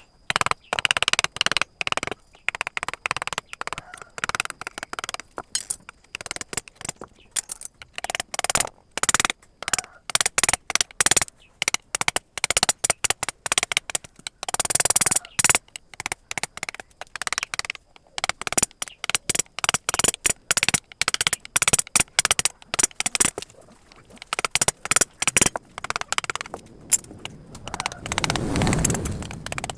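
A carving chisel driven into wood by quick, uneven mallet taps, several a second, with short pauses between runs.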